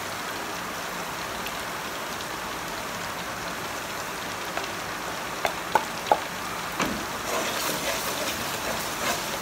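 Onions and ginger-garlic paste frying in oil in a pot, a steady sizzle. About halfway through come a few sharp knocks of a wooden spatula, then the scraping of stirring.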